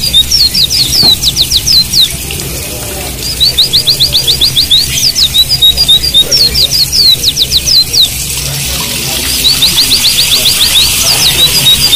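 White-eye (pleci) song: a fast run of high, sharp notes and trills, the same phrase coming three times, about every four seconds, over a faint steady hiss of running water.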